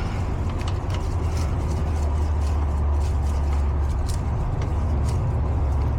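Steady low hum of running machinery, with a few faint ticks.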